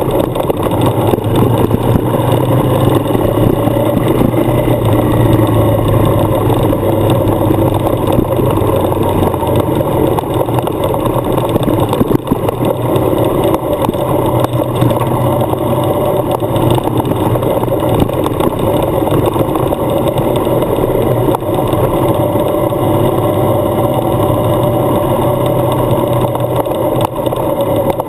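Adventure motorcycle engine running steadily while riding on a gravel track, with wind and tyre noise mixed in.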